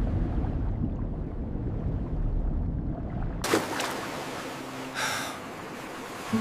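Sound-designed ocean ambience: a deep, low rumble that cuts off suddenly about three and a half seconds in, giving way to a hiss of surf-like water noise that swells briefly, with a faint held music tone underneath.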